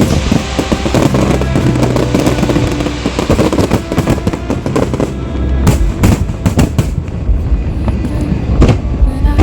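Aerial fireworks going off in a dense barrage: a rushing crackle for the first few seconds, then many separate sharp bangs in quick succession, over background music.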